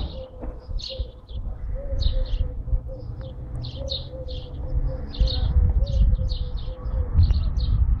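Small birds chirping in many short, high notes, over a low rumble. A single sharp click sounds right at the start.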